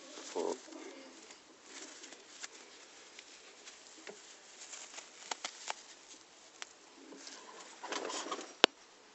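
Pakistani high-flyer pigeons cooing, with scattered small clicks and scuffs and one sharp click near the end.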